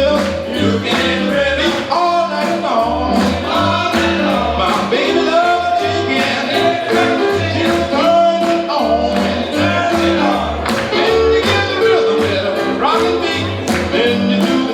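Upbeat rock-and-roll boogie song with a steady driving beat, a walking bass line and a singer.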